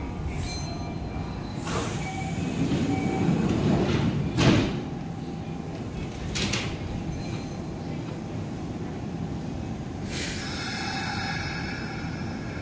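A standing train's sliding passenger doors closing, a swelling rush that ends in a sharp bang about four and a half seconds in, with a smaller knock two seconds later. Under it the train hums steadily at the platform, and a hiss starts near the end.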